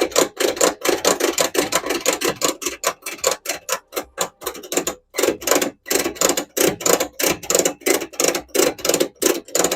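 A retractable ratchet tie-down strap's ratchet clicking rapidly as the strap is retracted, about five clicks a second. The clicking breaks off briefly about four and a half seconds in, then resumes and stops abruptly near the end.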